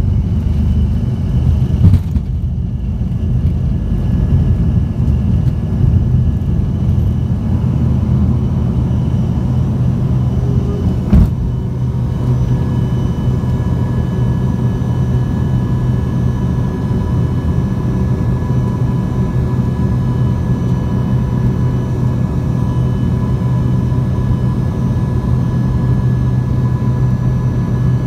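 Cabin noise of an Embraer ERJ 145 at full takeoff power: its rear-mounted Rolls-Royce AE 3007 turbofans and the airflow make a steady low rumble, with a thin engine whine on top, through the end of the takeoff roll, liftoff and initial climb. Two sharp knocks stand out, one about two seconds in and one about eleven seconds in.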